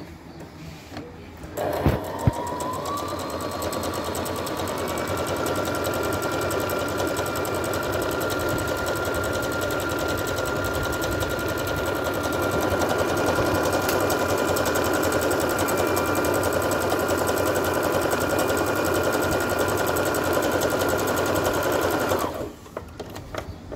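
Brother LX27NT electric home sewing machine sewing a decorative stitch. It starts with a click or two about two seconds in, its motor whine rising slightly as it comes up to speed. It then runs steadily for about twenty seconds and stops abruptly near the end.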